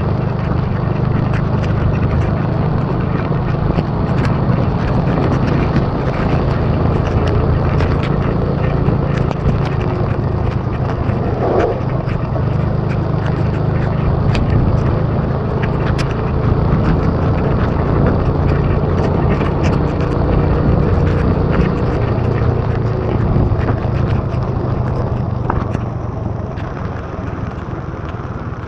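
Motorbike engine running at a steady road speed under loud wind and rain noise rushing over the microphone, with scattered small ticks; the sound eases off near the end as the bike slows.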